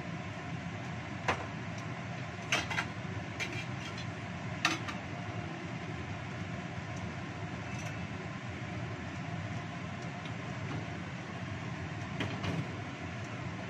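Kitchen range hood's extractor fan running with a steady whir. A few short sharp clicks come through it in the first five seconds and once more near the end.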